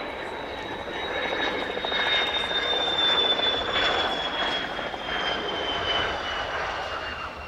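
F-16 fighter jet passing low on landing approach with its gear down: a steady jet roar with a high turbine whine that slowly falls in pitch. It is loudest about three seconds in, then fades a little.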